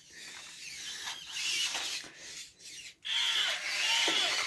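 Toy robot dog switched on, giving a hissy electronic noise and then, about three seconds in, a run of short warbling electronic tones from its built-in voice over a steady high beep.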